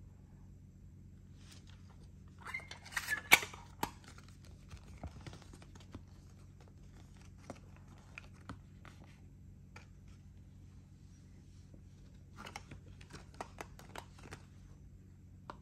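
Handling of a plastic audio cassette and its case and a folded paper J-card insert: a burst of rustling with sharp plastic clicks about three seconds in, scattered light clicks, then more paper rustling and clicks near the end as the insert is folded, over a faint steady low hum.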